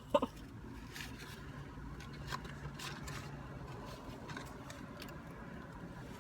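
Faint low hum inside a parked car, with a few soft clicks and rustles scattered through it.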